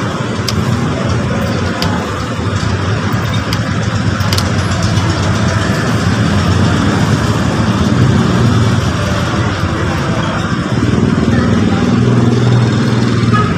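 Steady rumble of motor vehicle traffic, swelling about eight seconds in and again near the end, with a few faint clicks in the first half.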